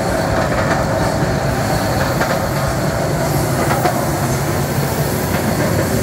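Schleifstein flanging machine running, rolling the knuckle into a steel tank head: a loud, steady mechanical rumble with scattered faint clicks as the plate turns through the rollers.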